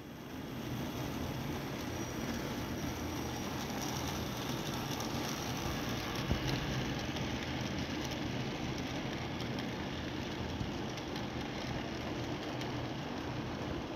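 HO-scale model train, a diesel locomotive pulling freight wagons, running along the layout's track with a steady low rolling rumble. The sound grows a little louder over the first couple of seconds as the train draws near, and one short click comes about six seconds in.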